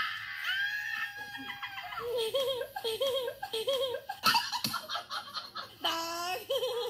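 A person laughing heartily: a long drawn-out note, then a run of rhythmic peals, and another held note near the end.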